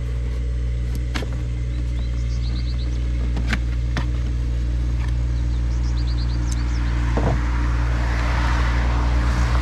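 Handling of a cardboard box over a steady low hum: a few sharp clicks and taps, then from about seven seconds in a growing rustle as the box is opened.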